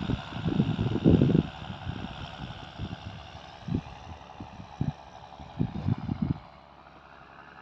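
Wind buffeting the phone's microphone in irregular low rumbles over a steady outdoor hiss. The buffeting dies down about six seconds in.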